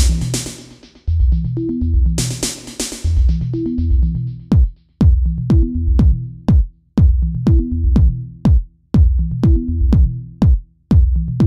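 Background electronic music with a steady drum-machine beat and deep bass-drum hits that drop in pitch.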